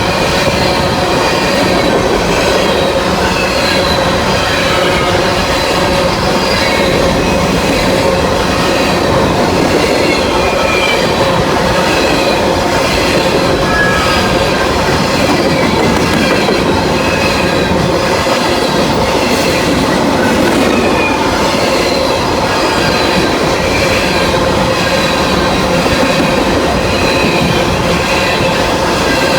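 Freight train cars rolling steadily past, with wheels squealing and a clatter of wheels over the rail joints.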